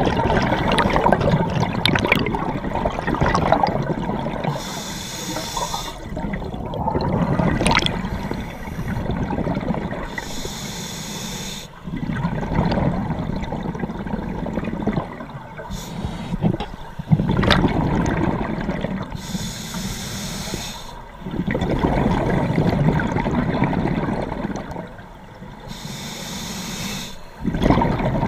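Scuba regulator breathing from the diver carrying the camera, heard underwater. Short hissing inhalations through the demand valve come about every five seconds, and each is followed by a long, loud rush of exhaled bubbles.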